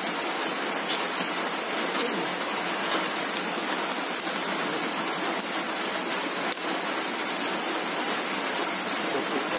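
Heavy rain falling, a steady even hiss with a few faint ticks.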